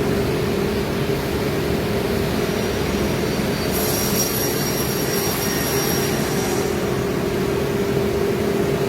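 CNC router cutting plywood: a steady machine drone with a constant whine. A higher, thin whine joins for a few seconds in the middle.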